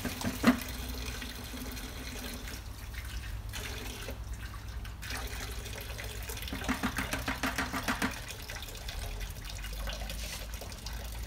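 Condensate water draining from a woodgas truck's rear condensate tank, pouring and splashing into a plastic bucket. There is a sharp knock about half a second in, and the splashing gets rougher for a second or so about seven seconds in.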